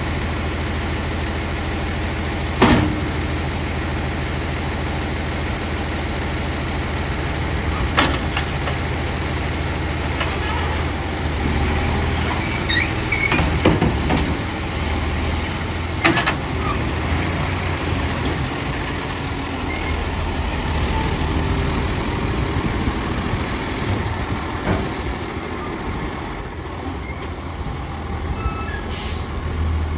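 Autocar ACX garbage truck's diesel engine running steadily while its automated side-loader arm empties a wheeled cart, with several sharp clunks of the cart and arm a few seconds in, about eight seconds in, and twice between fourteen and sixteen seconds.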